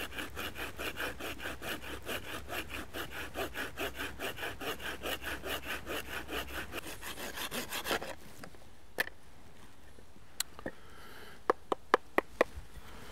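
Bahco Laplander folding saw cutting at an angle through a short piece of tree limb, with quick, even back-and-forth strokes of about four to five a second that stop about eight seconds in. A few sharp clicks follow.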